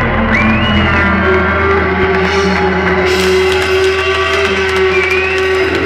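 Rock band playing live through a large PA, with electric guitars holding long sustained notes over a steady low end.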